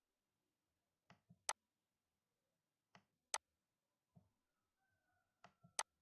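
Computer mouse clicking: three sharp clicks about two seconds apart, each preceded by one or two softer clicks.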